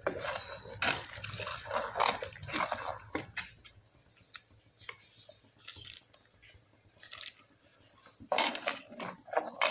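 Metal ladle stirring thick chicken gravy in a pot: clusters of scrapes and clinks, busiest in the first three seconds and again near the end, with a few scattered clicks in between.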